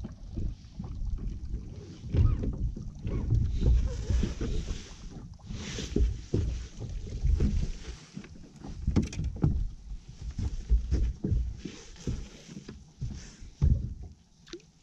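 Gusty wind on the microphone and water lapping against a bass boat's hull, with scattered knocks and clicks on the deck.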